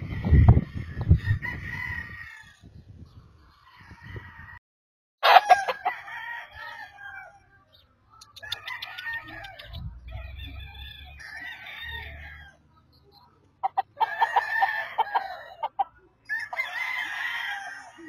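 Roosters crowing again and again, about seven crows one after another with short pauses between them. A few low thumps come near the start.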